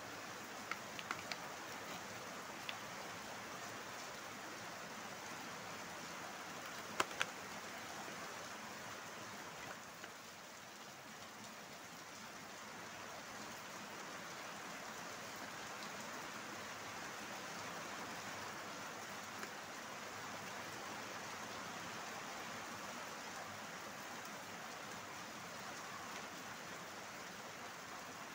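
Cardboard box and plastic packaging of bicycle accessories being handled: a few sharp clicks about a second in and a louder pair around seven seconds, over a steady, even hiss.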